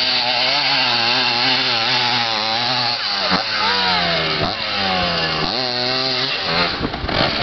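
Dirt bike engine revving: steady for the first few seconds, then its pitch drops and climbs again three times as the throttle is closed and reopened, with a brief rush of rough noise near the end.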